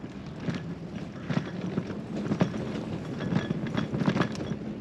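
Touring bicycle riding along a paved path: irregular rattles and small knocks from the bike over a steady low hum.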